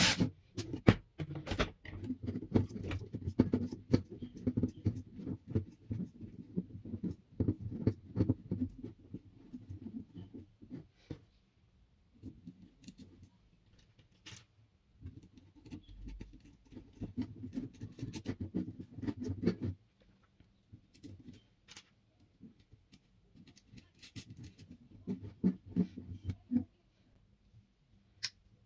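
Small parts and tools being handled on a workbench: irregular clicks, taps and rustles in spells, with short pauses between.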